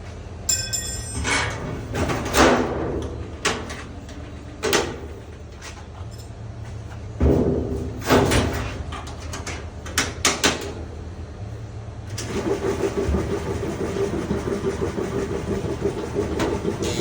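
Old Whirlpool direct-drive washer: a string of knocks and clanks, then from about twelve seconds in a steady running sound.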